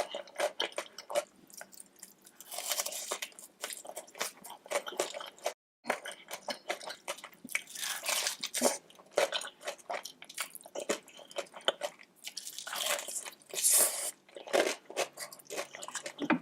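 Close-miked eating: crunchy bites and wet chewing of seafood, irregular and continuous, broken by a brief dead-silent gap about five and a half seconds in.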